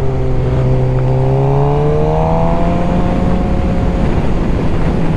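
2023 Suzuki GSX-R600 inline-four sportbike engine running under way at a steady cruise, its pitch rising gently for a couple of seconds as the throttle is opened slightly, then holding. Wind rushes over the microphone.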